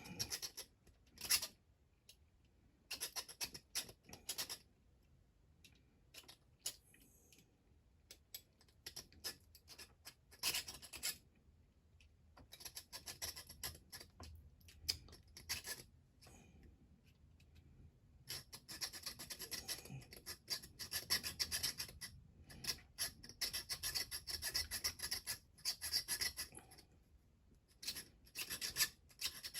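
A hacksaw cutting through small bolts a few threads above the nut, trimming the bolt ends. It goes in runs of quick back-and-forth strokes with pauses between, the longest run in the second half.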